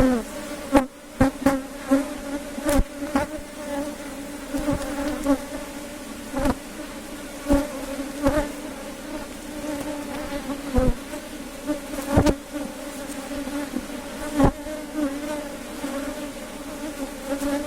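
Honey bees buzzing steadily around an opened hive, a dense hum wavering slightly in pitch. Sharp clicks and knocks come every second or so throughout.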